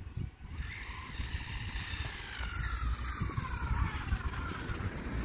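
WLtoys A959-B RC car's electric motor whining as the car drives, the pitch falling and then rising again with the throttle, over a steady low rumble.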